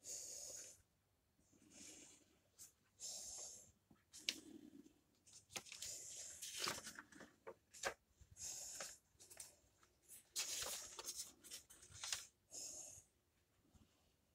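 Faint rustle of comic-book pages being handled and turned, a soft papery swish every second or two.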